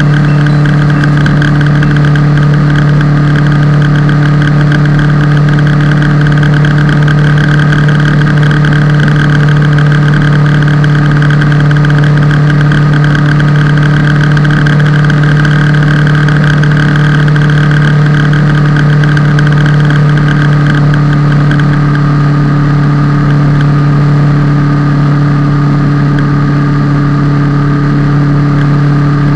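Kawasaki ER-6F motorcycle's parallel-twin engine running at steady, unchanging revs, a constant loud drone.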